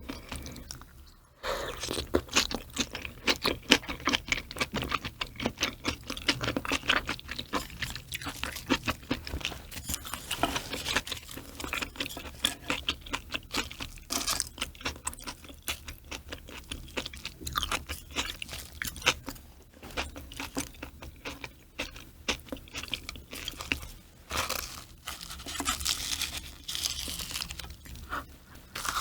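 Close-miked ASMR eating: rapid crunching and chewing of food in the mouth, with one short pause about a second in.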